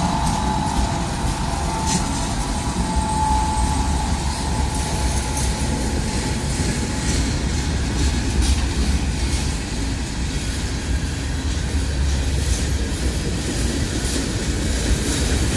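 Train rolling past close by: a steady rumble of wheels on the rails, with a thin wheel squeal that fades out after about three seconds.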